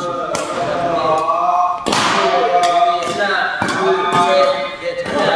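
Several sharp badminton racket hits on a shuttlecock, the loudest about two seconds in, over background music with a singing voice.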